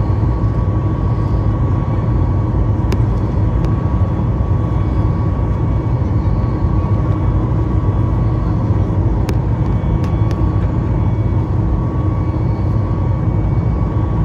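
Steady roar of a jet airliner's engines and airflow heard from inside the passenger cabin, with a faint steady hum in it and a few faint clicks.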